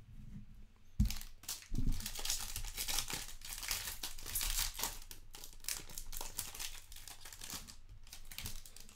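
Foil wrapper of a Select Soccer trading-card hobby pack being torn open and crinkled by hand: a dense run of crackling and tearing, starting with a thump about a second in.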